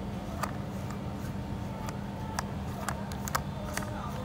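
Irregular sharp clicks and light scrapes of a disposable razor shaving raw pig skin, a few strokes a second, over a steady low hum.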